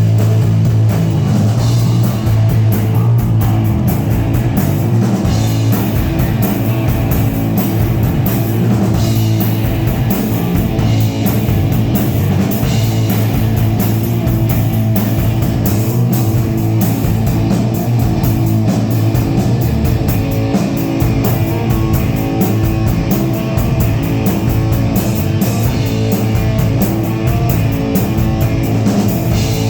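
Rock band playing loudly: electric guitar over a drum kit, continuous throughout.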